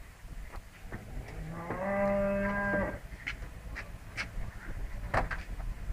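A cow moos once, a single drawn-out call lasting about a second and a half, rising slightly at the start and then held steady. A few sharp knocks follow in the second half.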